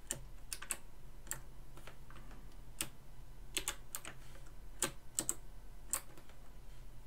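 Scattered single keystrokes on a computer keyboard, about ten sharp clicks at uneven intervals, some in quick pairs, over a faint steady low hum.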